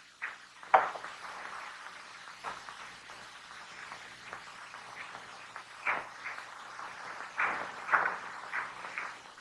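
Footsteps and scuffs on rock and loose ground as a man scrambles down and walks on, about a dozen irregular knocks over a faint steady hiss and low hum.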